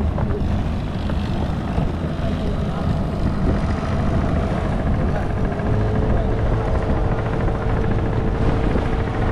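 A boat's engine running steadily with a low, even drone.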